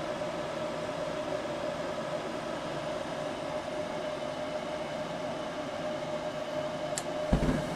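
Goodman two-stage gas furnace's replacement draft inducer motor running with a steady hum and whine while the hot surface igniter heats. About seven seconds in there is a short click, then a low rush as the burners light, with no hesitation.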